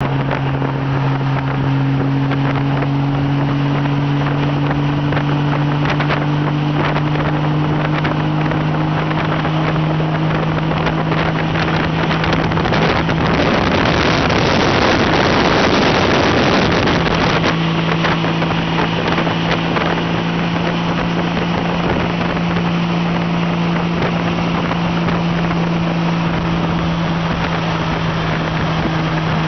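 Touring motorcycle engine droning at a steady highway cruise, under a heavy rush of wind on the microphone. The wind grows loudest about halfway through and drowns the engine for a few seconds, then the drone returns a little higher in pitch.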